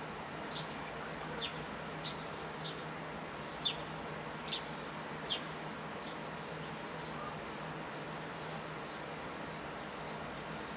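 Sparrows chirping: quick runs of short, high, downward-sliding chirps throughout, the sharpest about a third of the way in, over a steady outdoor background hiss with a faint low hum.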